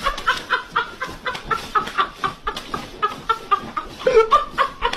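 A rapid run of short bird calls, about four to five a second, with a louder call a little past four seconds in.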